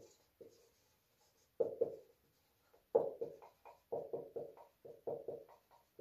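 Marker pen writing on a whiteboard: a quick run of short, separate strokes, starting about one and a half seconds in and densest from about three seconds on.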